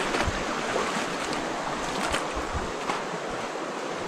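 Shallow rocky stream rushing steadily, with a few short splashes and knocks as people wade through it.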